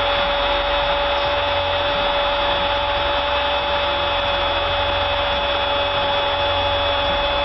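A sportscaster's goal cry held on one steady note for several seconds over loud stadium crowd noise.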